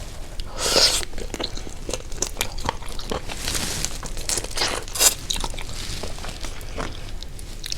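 A person eating: biting, crunching and chewing, with many small crackly clicks and a few louder crunches, about a second in and again around five seconds in.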